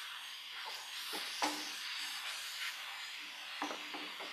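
Wooden spatula stirring and scraping sliced onion, ginger-garlic and green chillies frying in coconut oil in a pan, over a steady sizzle, with a few sharp knocks of the spatula against the pan.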